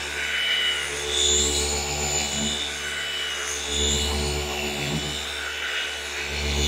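Flex FX3331 24V cordless gear-driven orbital polisher running with its foam pad working polish into car paint. Its steady motor hum swells and eases about every second or so.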